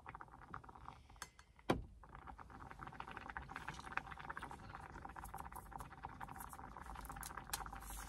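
Pot of rice and water coming to the boil, with faint, dense, fine bubbling and crackling. One sharp click about a second and a half in.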